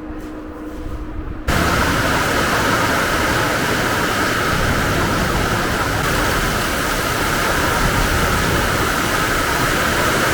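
Loud steady rushing noise with no pitch or rhythm, cutting in suddenly about a second and a half in after faint room sound.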